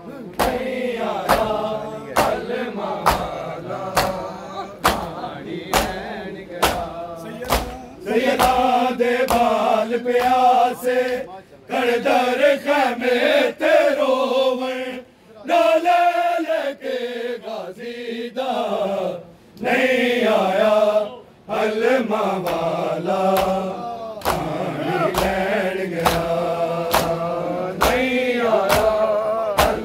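Men's voices chanting a Urdu noha (lament) in unison. The chant is punctuated by rhythmic matam: open palms striking bare chests about twice a second, with a few brief pauses in the beating.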